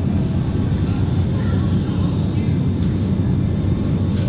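Shopping cart rolling across a store floor: a steady low rumble from its wheels, carried through the cart's frame.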